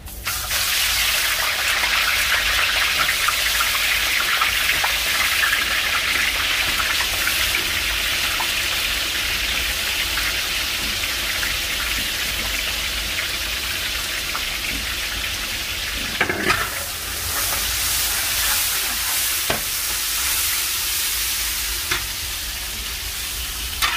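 Sliced onions frying in a large karahi of hot ghee: a loud sizzle that starts suddenly as the onions go in, then holds steady. Near the end a metal spatula stirs them, with a few clicks against the pan.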